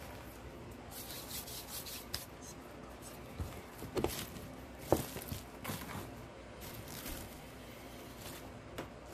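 Rustling and rubbing as artificial greenery stems are handled and worked into a wooden centerpiece box, with a few light knocks, the sharpest about five seconds in.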